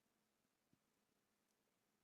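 Near silence: faint room tone with one faint click about three quarters of a second in, typical of a lock pick working the pins of a padlock.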